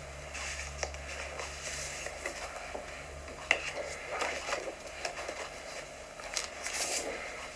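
Paper rustling and handling, scratchy and crackling, with several short clicks and one sharp tap about three and a half seconds in.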